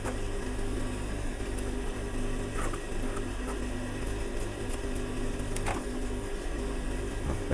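Industrial sewing machine's electric motor humming steadily while the machine is not stitching, with a few faint snips of scissors trimming the fabric.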